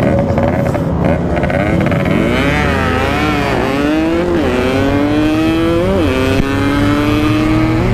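Yamaha RX-King 135cc single-cylinder two-stroke motorcycle accelerating hard. The engine pitch climbs steadily and drops sharply three times as the rider shifts up through the gears.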